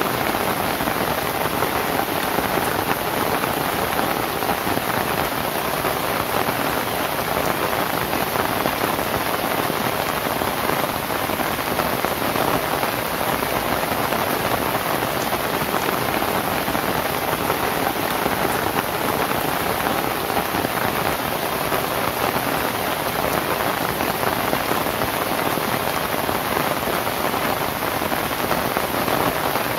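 Rain falling steadily on a thatched roof of dried lontar palm leaves: a dense, even patter with no letup and no thunder.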